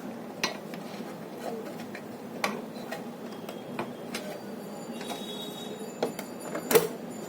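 Scattered small clicks and taps of a screwdriver on the casing of an electronic hanging scale as its charging socket is pushed and prised loose. The clicks come at irregular intervals, and the loudest is near the end.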